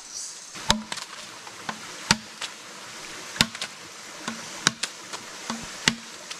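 Chopping strikes of a blade into wood: five hard, sharp blows at a steady pace of roughly one every second and a quarter, with lighter knocks in between.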